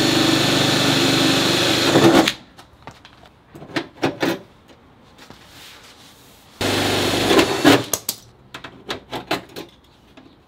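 Cordless drill running in two short bursts, about two seconds at the start and about a second past the middle, drilling through the steel fender panel to take a Cleco fastener. Between the bursts come short clicks and knocks as locking clamps are fitted to the flare.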